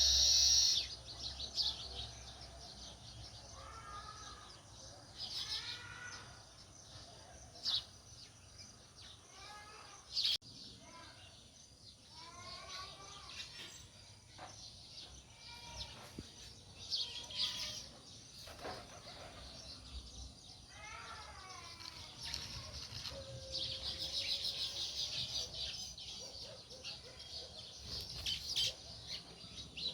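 House sparrows chirping: repeated short chirps and arching call notes, with a denser bout of rapid twittering near the end.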